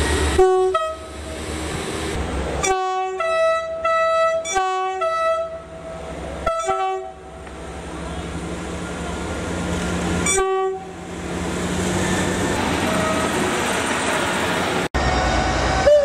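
Class 158 diesel multiple units sounding their two-tone horns several times, alternating short low notes with longer higher notes. After that a unit passes with its diesel engine running, growing louder.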